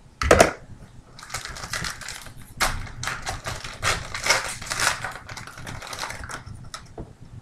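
Foil wrapper of an Elite football card pack being torn open and crinkled by hand: a sharp snap just after the start, then several seconds of crackling, rustling foil.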